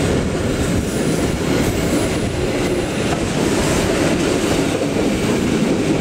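Passenger train carriages passing close by at speed: a steady loud rumble of steel wheels on the rails.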